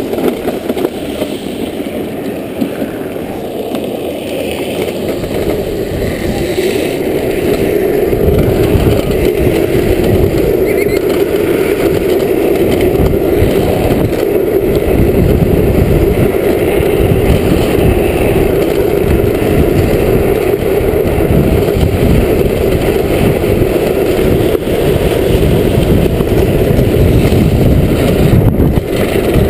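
Drift trike coasting downhill: its plastic-sleeved rear wheels rolling and sliding on asphalt with a steady hum, mixed with wind buffeting the microphone. It grows louder over the first several seconds as the trike picks up speed, then holds steady.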